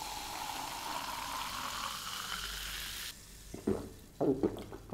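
Pepsi poured into a glass mug and fizzing with a steady hiss, which cuts off about three seconds in. It is followed by a few short gulps as the cola is drunk.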